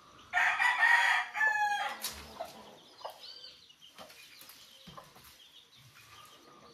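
A rooster crowing once near the start, a single loud call lasting under two seconds, with its end falling in pitch.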